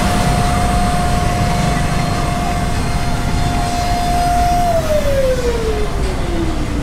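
Cotton candy vending machine's spinner head motor whining at a steady pitch, then winding down about two-thirds through with a falling whine as the spin slows, over a steady rush of background noise.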